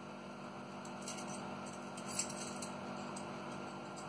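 A few faint clinks and taps of crochet hooks and knitting needles being picked through, about a second in and again just after two seconds in, over a steady faint hum.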